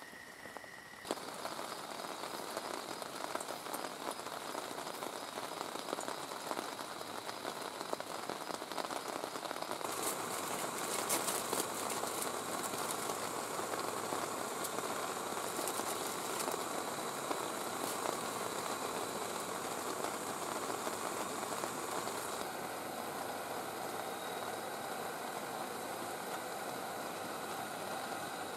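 Steady heavy rain falling on the tent and surrounding ground, an even hiss that changes abruptly about a second in and again around ten seconds in.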